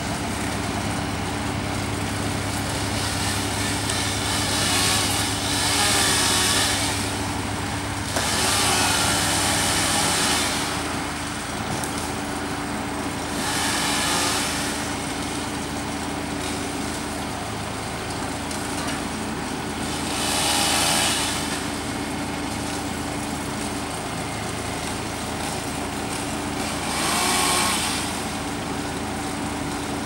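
A truck's diesel engine idling steadily, while cars pass on the road about five times, each pass swelling and fading over a second or two.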